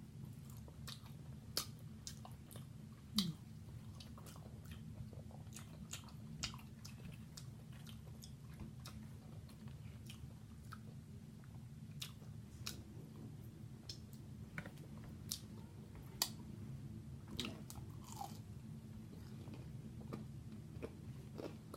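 A person chewing and biting seafood-boil food close to the microphone: scattered wet mouth clicks and crunches, the sharpest about a second and a half in, about three seconds in and near sixteen seconds. A steady low hum runs underneath.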